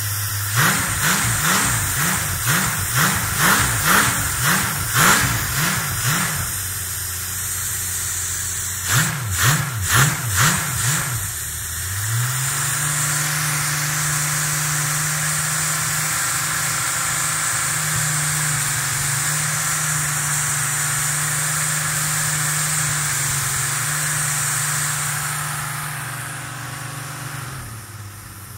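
Holden 202 inline-six engine running on a Rotec throttle-body injection unit, its throttle blipped by hand: a rapid run of quick revs from idle, a short pause, a few more blips, then held at a steady higher speed for about twelve seconds before easing back to idle near the end.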